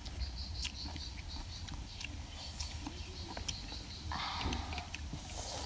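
Close-up chewing of crunchy shredded green papaya salad: many small, irregular crisp clicks and crunches, with a couple of short breathy rushes about four and five seconds in. A high chirp repeats evenly behind it.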